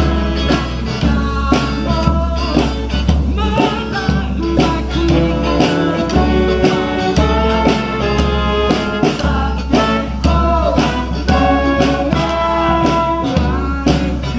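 Live band playing a bluesy folk song, guitar and other instruments with a steady beat.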